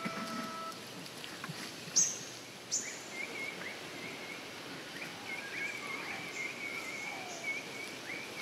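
Birds calling: a repeated high, warbling chatter, with two sharp, very high calls that drop quickly in pitch about two seconds in, just under a second apart, the loudest sounds.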